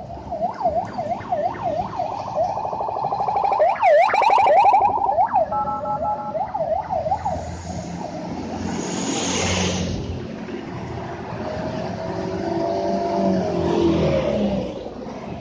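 A siren-like yelp sweeps quickly up and down, about two sweeps a second, through the first half as the bus convoy passes. A short multi-tone horn chord sounds partway through. After that comes the rush of a heavy vehicle going by, then a lower wavering horn or engine tone near the end.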